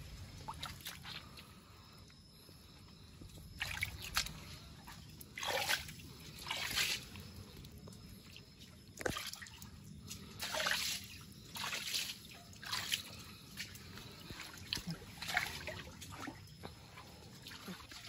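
Shallow river water sloshing and splashing in short, irregular bursts a second or two apart as someone wades through it, over a faint steady trickle.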